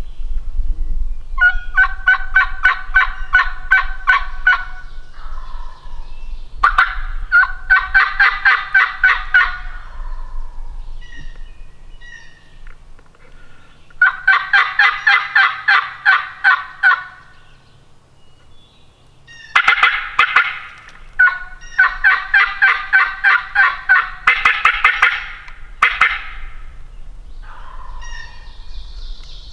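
Wild turkey gobbling: about five rattling bursts of two to three seconds each, the last few coming close together.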